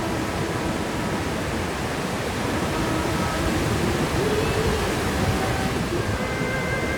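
Steady roar of wind and ocean surf on an open beach, heavy and low, with faint wavering voices under it in the second half.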